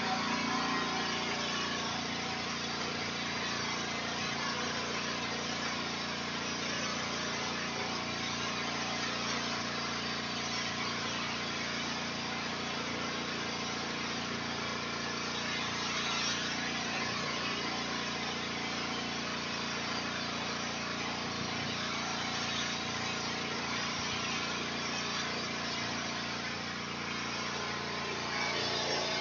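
Pressure washer running steadily: a small engine's even drone under the hiss of the high-pressure water jet from the spray wand.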